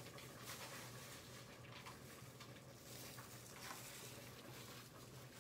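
Near silence: faint, soft rustling and light patter from a plastic-gloved hand sprinkling shredded cheese over a bowl of soup, over a low steady hum.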